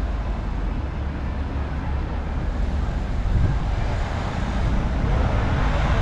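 City street traffic noise: a steady low rumble of vehicles, with a vehicle passing closer and louder near the end.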